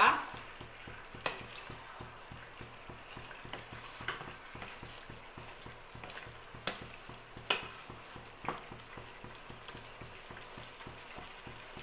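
Chicken pieces in green chilli masala sizzling gently in a non-stick kadai, cooking in the juices they have let out, with a few short knocks and scrapes of a wooden spatula against the pan as it is stirred.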